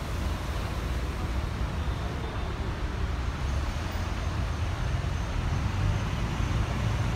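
Steady low rumble of a moving open-top double-decker bus, with its engine and road noise mixed with street traffic, heard from the open upper deck.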